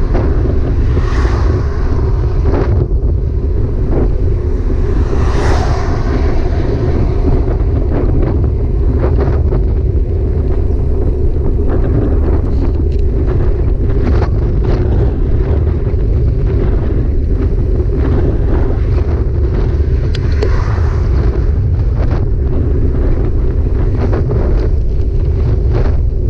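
Steady heavy wind rumble on the microphone of a camera riding on a moving bike, with frequent small clicks and rattles and a few brief whooshes that swell and fade.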